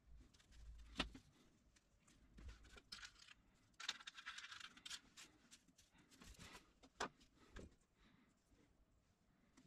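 Small metal parts (nuts, washers and screws) faintly clicking against each other and onto a paper towel as they are handled, with the paper rustling about three to five seconds in. Two sharper clicks stand out, about a second in and about seven seconds in.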